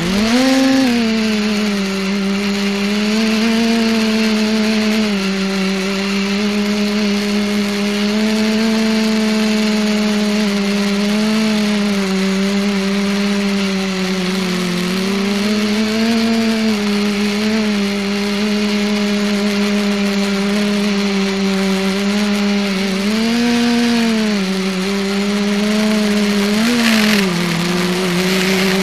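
Electric multicopter's motors and propellers running with a steady droning whine, the pitch rising and falling a little as the throttle changes, with brief swells near the end. It is heard close up from the camera mounted on the craft.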